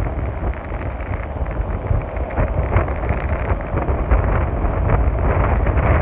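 Small surf breaking and washing up a flat sandy beach, with wind buffeting the microphone in a low rumble. The sound grows a little louder in the second half.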